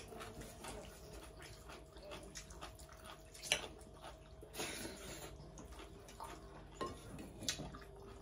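Close eating sounds: chewing and wet lip smacks, with fingers mixing rice on plates, as a string of faint irregular clicks and one sharper click about three and a half seconds in.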